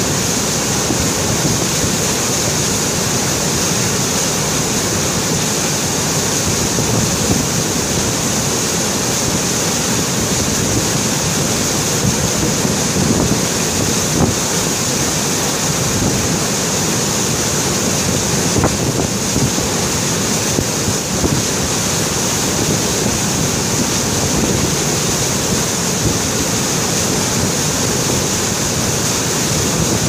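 Steady, loud rushing of glacial meltwater, an even noise of water with no break or change.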